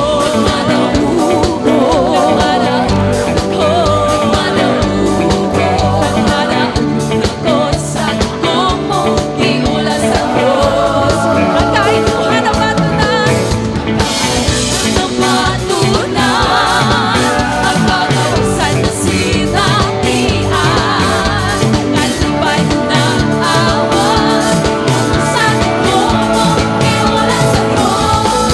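Live worship band playing a rock-style song, a singer's voice carried over a steady drum beat and sustained instruments.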